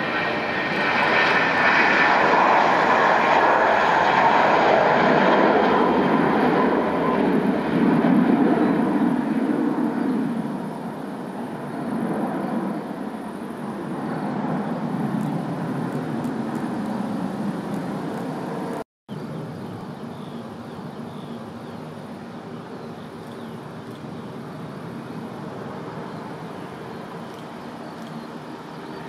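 Airbus A320 jet engines at takeoff power: a loud roar with a high whine as the airliner rolls past and climbs away, fading after about ten seconds. After a brief cut, a quieter steady jet noise from an Embraer regional jet rolling on the runway.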